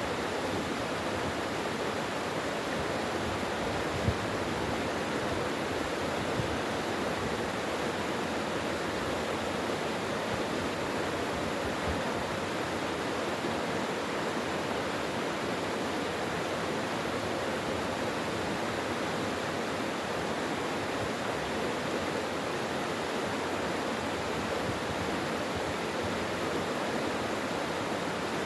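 Mountain valley stream flowing steadily over rocks, an even rush of water. A brief tick sounds about four seconds in.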